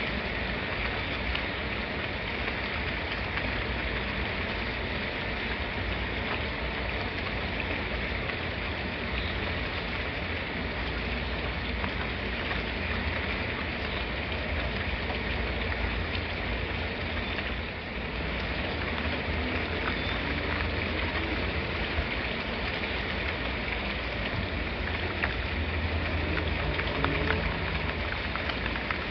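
Steady rain falling: an even hiss with a low rumble beneath it, and a few sharper drop ticks near the end.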